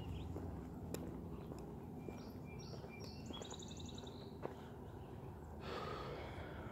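A songbird calling faintly: a few short high chirps, then a quick high trill about three and a half seconds in, over faint outdoor background noise. A soft rushing noise comes in near the end.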